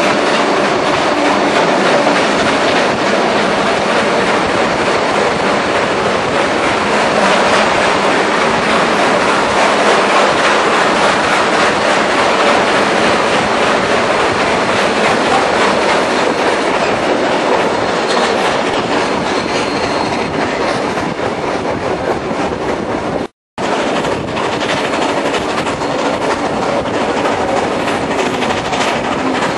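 Timber-bodied railway passenger carriage running at speed, the steady rumble and clickety-clack of its wheels on the rails heard from an open carriage window, partly inside a tunnel. The sound drops out for a moment about three-quarters of the way through.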